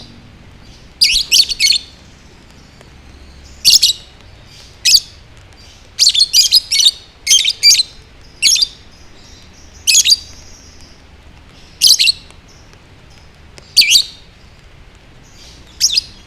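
Lovebird chirping: short, shrill calls, some single and some in quick runs of three or four, coming every second or two.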